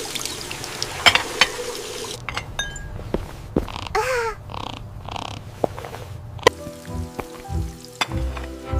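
Gentle background music. In the first two seconds there is a noisy hiss with a few sharp clicks, and about four seconds in a short sound that glides up and down in pitch.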